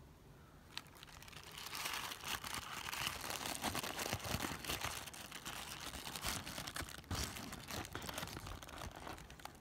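Thin white tissue wrapping paper crinkling and rustling as hands unwrap a small toy, with a light click just under a second in before the crinkling starts.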